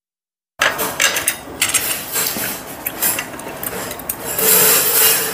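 A dead-silent gap, then a run of scraping and rubbing with many small clicks: chopsticks and a spoon scraping a garlic-baked oyster on its half shell. The scraping is loudest about four and a half seconds in.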